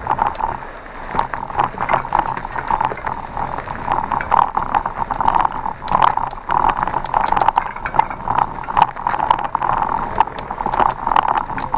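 Bicycle riding over a rough forest trail: continuous rolling and drivetrain noise, broken by many small clicks and rattles.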